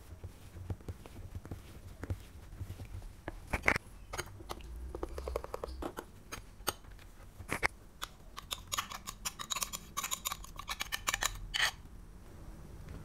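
Metal spoon stirring cake batter into melted margarine in a small ceramic bowl, clicking and scraping against the bowl's sides, with a fast run of clinks from about eight and a half seconds until near the end.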